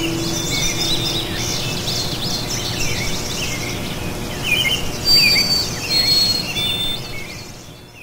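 A chorus of small songbirds chirping and calling, with a few short, steady high whistles among the chirps. It fades out near the end.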